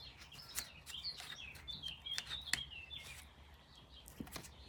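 Faint bird chirping in the background, a run of short wavering whistles about a second in, with a few light clicks and taps of parts being handled as the mirror is connected back up.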